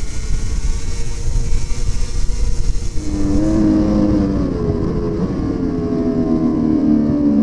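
Onboard sound of racing superbikes at speed: engine and wind noise from a Honda, then, about three seconds in, a Ducati superbike's engine note, clearer and more tonal, easing down in pitch and starting to rise again near the end.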